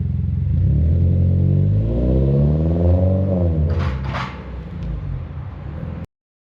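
Toyota GR86's 2.4-litre flat-four idling through an XForce RACESPEC 2.5-inch stainless catback exhaust with twin resonators, then revved once, rising smoothly and dropping back to idle. Two short rushing noises follow about four seconds in, and the sound cuts off suddenly near the end.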